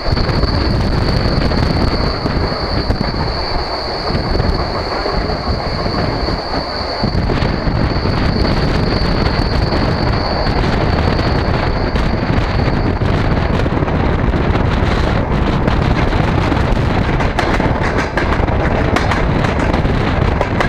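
DR1A diesel multiple unit running at speed, heard through an open carriage window: a steady, loud rush of wheel, rail and wind noise. A steady high whine rides on top and fades out a little past halfway, and light clicks come through in the later part.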